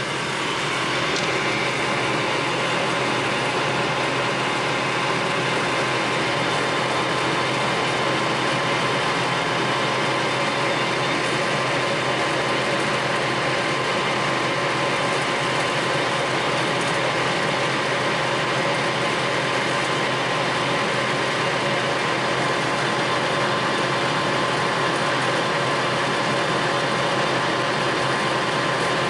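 Clausing Colchester Master 2500 engine lathe running under power, a steady whir and rattle of its headstock gearing and spindle. The noise steps up just as it begins and then holds level.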